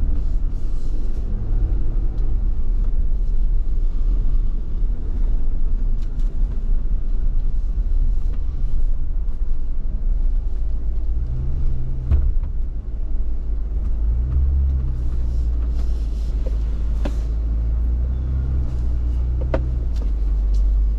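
Off-road vehicle's engine running at low speed with a steady low rumble while crawling over a rocky trail, with a few sharp knocks in the second half.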